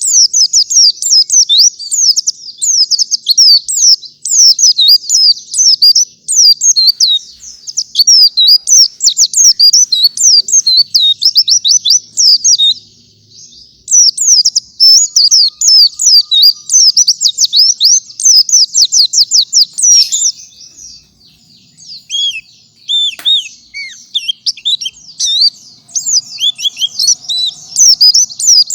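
Pleci (white-eye) singing a fast, continuous run of high chirps and trills in the 'gacor' style, with short breaks about halfway and about three-quarters through.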